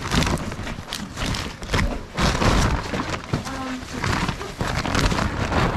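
Cardboard boxes knocking and sliding against one another as they are packed into a large woven plastic shopping bag, with the bag rustling and a run of thuds and clatters.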